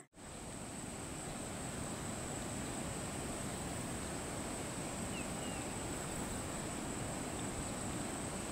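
Steady high-pitched drone of insects, likely cicadas or crickets, over a constant low rushing hum of outdoor ambience.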